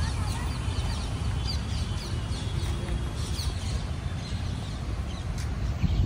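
Small birds chirping, many short high calls that drop quickly in pitch, over a steady low rumble.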